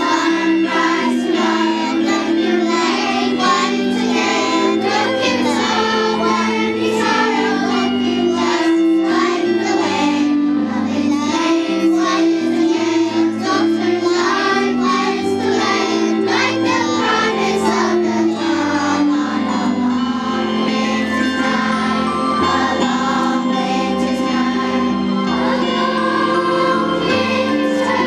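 Children's choir singing a song, continuous and steady in loudness.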